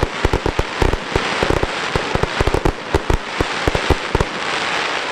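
Fireworks display: a rapid barrage of sharp bangs and cracks from aerial shells, several a second, thinning out about four seconds in to a steady hiss.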